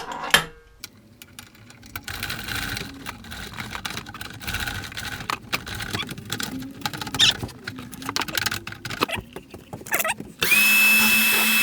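Repeated clicks, knocks and clatter of parts being handled while a planer thicknesser is converted from planer to thicknesser. Near the end a small electric power-tool motor runs for about a second with a steady whine, then winds down.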